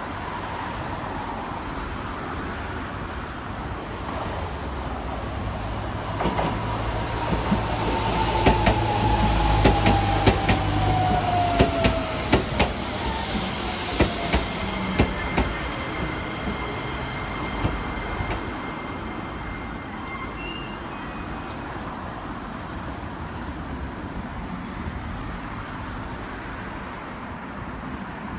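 A Keisei electric commuter train arrives and brakes to a stop at the platform. Its wheels clack over the rail joints and its motor whine falls steadily in pitch as it slows. Steady high tones follow while it stands.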